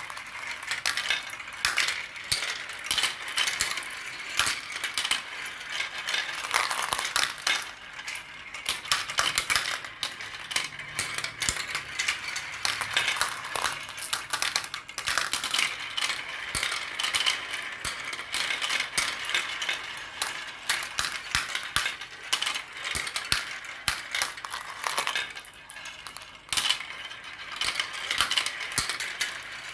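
Marbles rolling and clattering down a marble run: a continuous stream of small hard clicks and clacks as many marbles knock against the track and each other.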